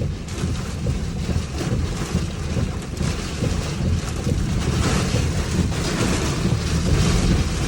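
Strong, gusty rear-flank downdraft wind of a tornadic storm buffeting the microphone: a heavy low rumble with rushing noise, growing louder and hissier about five seconds in.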